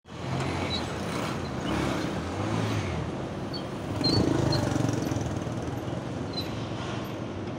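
Steady street noise of traffic, a low rumble with a slight swell about four seconds in, and a few brief high chirps.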